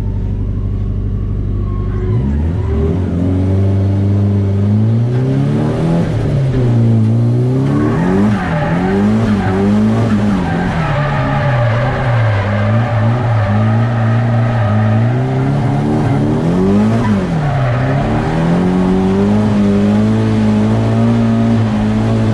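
Turbocharged SR20 four-cylinder of an S-chassis Nissan Silvia drift car, heard from inside the stripped cabin, revving up and down again and again through a drift run. Tyres squeal from about eight seconds in, over the engine.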